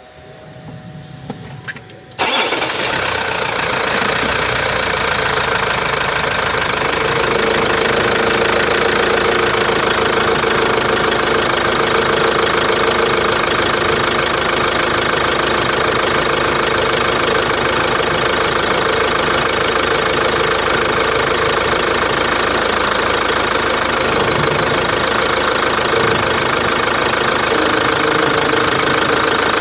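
Chevrolet Captiva diesel engine starting with a sudden catch about two seconds in, then idling steadily. It idles with an extraneous noise that the owner takes for a fault.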